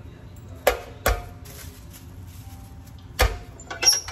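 Metal tortilla press clanking: two sharp knocks with a short metallic ring, then another knock and a short clatter near the end as the lid is shut and the handle pulled down to flatten a ball of dough.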